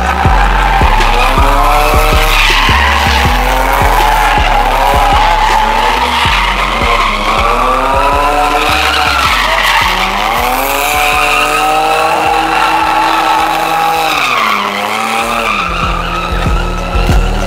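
Car engine revving up and down over and over, with tires squealing, as the car spins donuts. Music with a heavy bass beat plays alongside.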